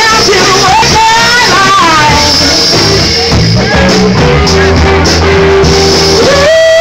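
Live blues band playing loudly, with a singer's voice sliding between notes and holding long notes over the band. Near the end a long held note steps up in pitch.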